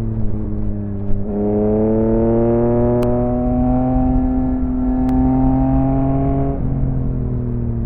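Yamaha XSR900 inline-three motorcycle engine through an M4 aftermarket exhaust, heard while riding. About a second in, the throttle opens and the engine pulls with a slowly rising pitch for several seconds. Near the end the pitch drops as the throttle closes or it shifts up.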